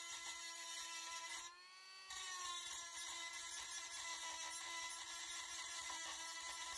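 Cordless rotary tool whining at high speed, its small bit grinding against the painted pressed steel of a vintage Tonka toy truck part with a hissing scrape. About a second and a half in, the grinding hiss drops away for about half a second and the whine rises slightly, then the bit bites again.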